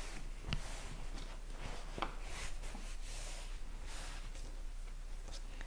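Hands smoothing and brushing across a quilted cotton patchwork cushion cover: soft, scratchy fabric rustling, with a few light knocks.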